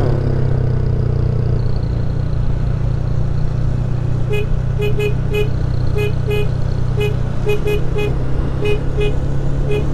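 Honda 160 single-cylinder motorcycle engine running steadily while riding. From about four seconds in, it is joined by a series of short, same-pitched horn beeps, many in quick pairs.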